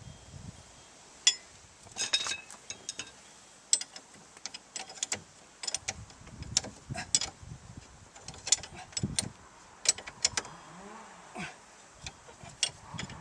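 Irregular metal clinks and knocks from hand tools and fasteners being handled while a strut is bolted back in, with no steady rhythm.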